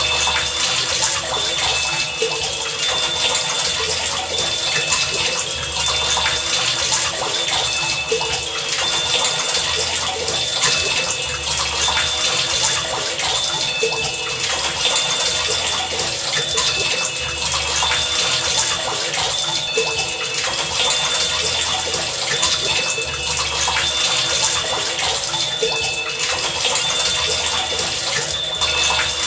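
Heavy rain falling in a steady dense hiss, with short high tones repeating on and off and a low throb coming and going about once a second underneath.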